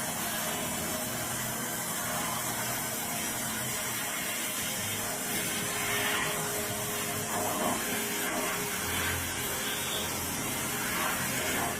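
Steady loud hiss of a high-pressure jet used to clean engine parts, swelling slightly now and then.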